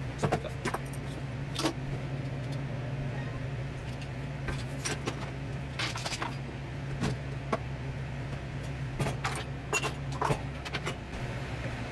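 Things being shifted around on a desk: scattered knocks, clicks and light rattles as a keyboard, small items and a countertop oven are moved and set down, over a steady low hum.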